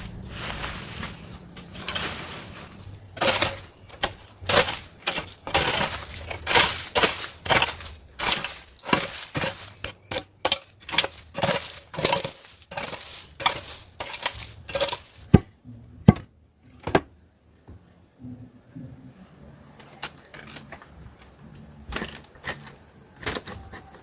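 A series of sharp knocks or strikes at an irregular pace, about one or two a second, thinning out after about two thirds of the way through, over a steady high drone of insects.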